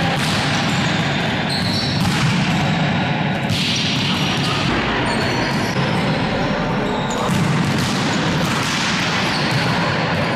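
Volleyballs being hit and bouncing on a sports hall floor during team practice, the hits coming every second or two over a steady hall din.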